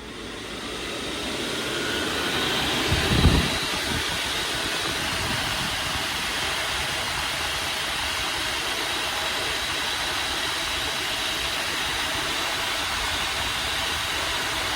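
Two diesel heater blower motors speeding up together with a rising whine over about two seconds, then running steadily at high speed with a loud rush of air. One has its intake ported out, the other keeps the stock restrictor. A brief low thump about three seconds in.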